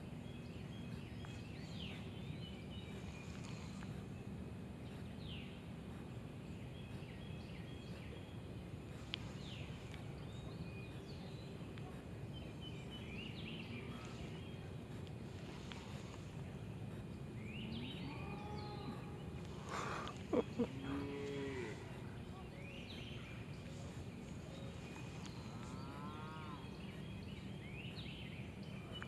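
A cow mooing about two-thirds of the way through, over a steady outdoor background with scattered bird chirps.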